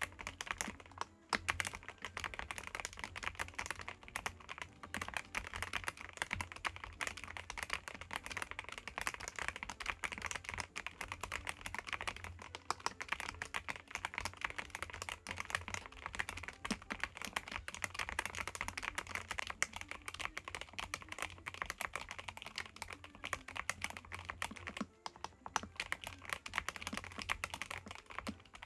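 Continuous fast typing on a YUNZII B75 Pro gasket-mounted mechanical keyboard with YUNZII Milk switches and PBT double-shot keycaps, keystrokes running together densely, with brief pauses about a second in and near the end.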